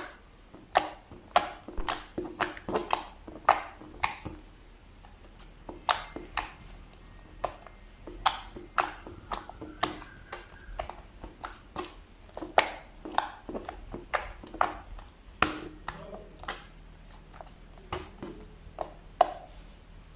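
Slime being pressed and stretched by hand, giving an irregular string of sharp pops and clicks, about one to three a second, as air pockets in it burst.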